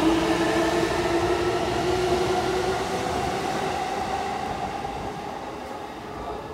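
Electric commuter train pulling out of a station: a whine from its drive that slowly rises in pitch over a rumble of wheels, fading as the train draws away.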